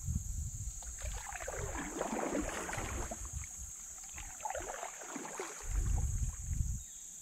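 Canoe paddling: water splashing and dripping off a paddle beside the canoe hull, with wind buffeting the microphone in low gusts. A steady high hiss runs underneath.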